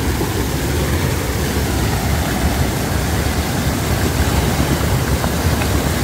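Small mountain-stream waterfall pouring over a rock ledge into a pool: a loud, steady rush of falling water with a deep rumble underneath.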